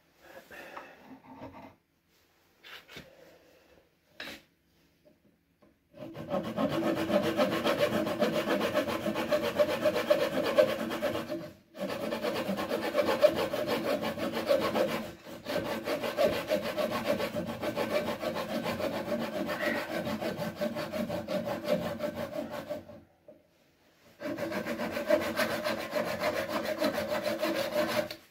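A saw cutting through wood at the repaired chair joint. It starts about six seconds in and runs in four stretches with brief pauses between them.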